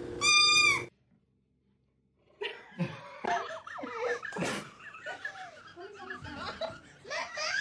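A brief high-pitched arching call at the start, then after a second or so of silence, people laughing in short bursts.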